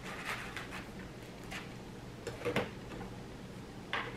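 Light clicks and soft rustles of hands handling slices of toast spread with garlic aioli, a few separate touches with a small cluster midway, over a faint steady low hum.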